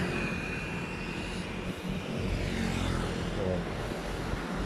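Steady rumble of street traffic, engines and tyres of passing vehicles.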